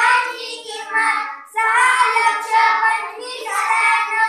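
A group of children singing together in unison, in sung phrases with short breaths between them about a second and a half and three seconds in.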